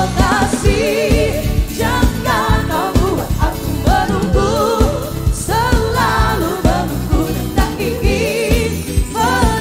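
A song with a lead singer's wavering, vibrato-laden voice over a steady drum beat.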